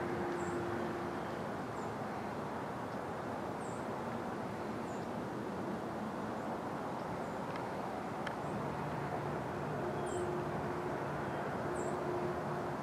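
Outdoor field ambience: a steady low rumble, with short high-pitched bird chirps every second or two.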